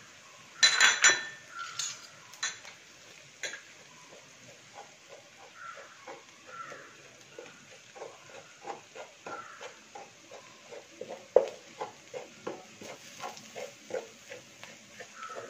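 Steel spatula scraping and stirring in a stainless steel pot, working ground spices into the oil and onions so they roast in it. A sharp metal clatter against the pot comes about a second in. Then comes a steady run of short scraping strokes, about two to three a second.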